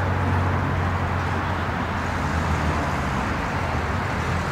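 Steady low rumble of motor-vehicle noise, a hum with a hiss over it, unbroken and without distinct events.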